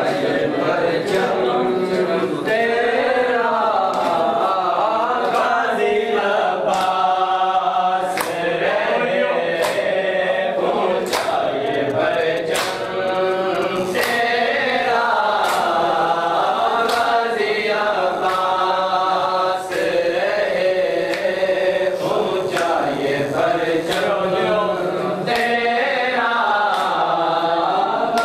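Group of men chanting a Shia nauha (mourning lament) in chorus, with sharp hand slaps on bare chests (matam) keeping a steady beat, about three slaps every two seconds.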